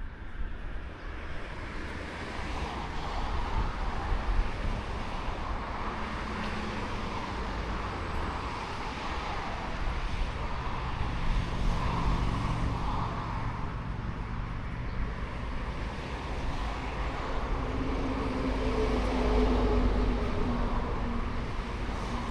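Road traffic passing: a steady rush of motor vehicles with low rumble. An engine hum swells about halfway through, and another vehicle's hum comes in over the last few seconds.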